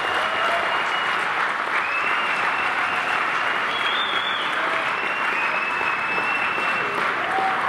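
Large audience applauding steadily, with several long, high whistles held over the clapping.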